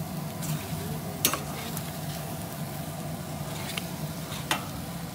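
A spoon stirring chili in a large stainless steel pan, scraping and clinking sharply against the metal a few times, over light sizzling and a steady low hum.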